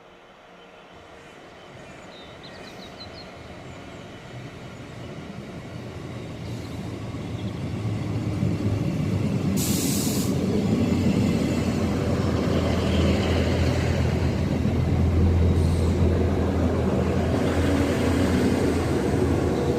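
Class 158 diesel multiple unit arriving: its diesel engines hum with a steady low tone, growing louder over the first eight seconds or so as the train draws in, then holding level. A short hiss about halfway through.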